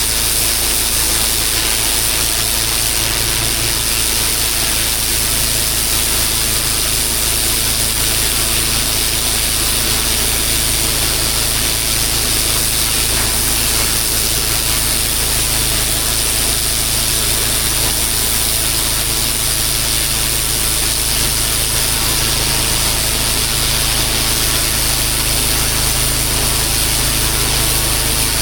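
Pressure washer running: its engine drones steadily under a continuous hiss of high-pressure water spray.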